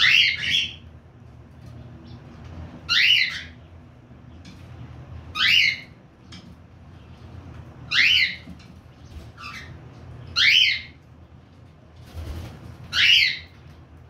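Lutino cockatiel calling: a short, sharp call of about half a second, repeated six times at roughly two-and-a-half-second intervals, with a fainter call between two of them.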